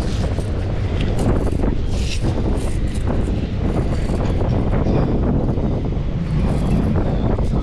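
Wind buffeting the microphone: a loud, unbroken low rumble that rises and falls without a rhythm.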